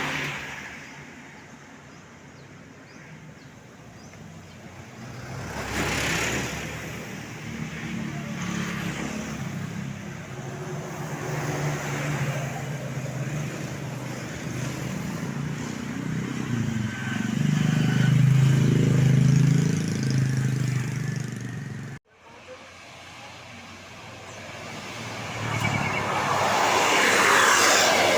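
Road traffic with large buses going by: rushing tyre and engine noise swells as each vehicle passes, with a heavy low engine note loudest about two-thirds of the way through. The sound cuts off abruptly about 22 seconds in, then another vehicle approaches.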